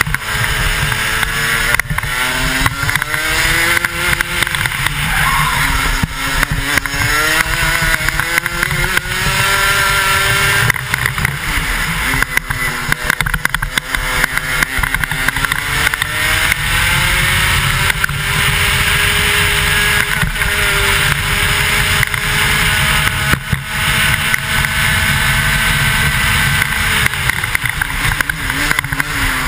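125cc two-stroke racing kart engine heard on board at speed: its pitch climbs in repeated runs as it accelerates out of the corners, drops sharply each time it lifts for a bend, then holds high for a long stretch on the straight before falling near the end. Heavy wind buffeting on the helmet-mounted microphone runs underneath.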